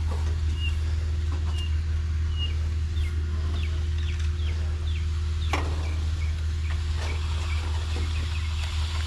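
Concrete mixer truck's diesel engine running with a steady low drone. A few short high chirps and light scrapes sound over it.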